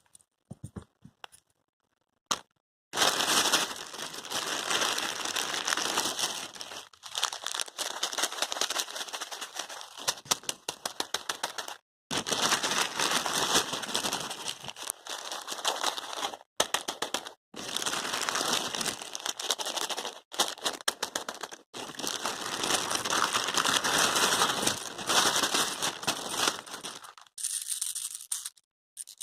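Gift wrapping being crumpled and torn by hand, a dense crinkling and crackling that goes on in long stretches with brief pauses. It starts about three seconds in and stops shortly before the end.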